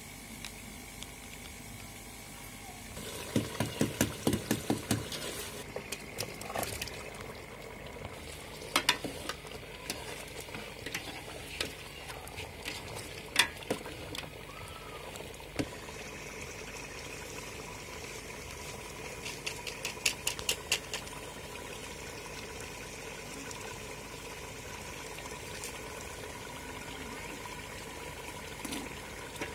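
A metal ladle stirs potatoes in tomato gravy in an aluminium pot, with runs of quick clinks and scrapes against the pot. Underneath is a steady sizzling hiss of the pot cooking on the heat.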